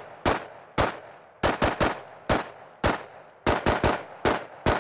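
Rapid semi-automatic fire from an AR-style carbine: twelve shots with a short echo after each. Two single shots, then twice a quick group of three followed by two single, more spaced shots, the 3-1-1 cadence of three to the chest, one to the pelvis and one to the head on each target.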